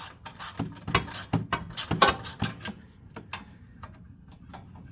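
A 1/4-inch socket ratchet clicking in irregular strokes as a bolt is worked loose. The clicks come quickly in the first couple of seconds, then thin out to a few faint ones.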